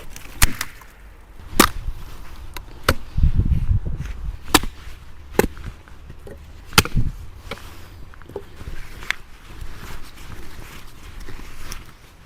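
Sharp, irregular chopping strikes, about eight of them spread across the twelve seconds, with a burst of wind rumbling on the microphone about three seconds in.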